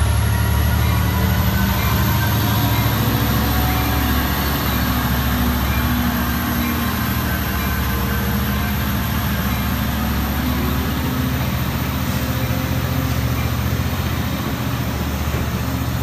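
Long Island Rail Road diesel train rolling slowly past a platform: a steady low engine drone under the rumble of bilevel coaches moving by, with a thin high whine above it.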